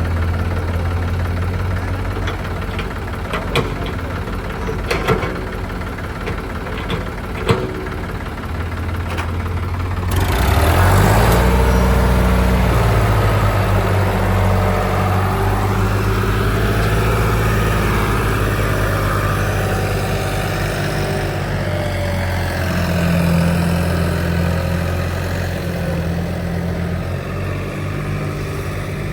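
Diesel engine of a JCB backhoe loader running steadily, with a few sharp knocks in the first eight seconds, then revving up about ten seconds in and staying loud as it works under load.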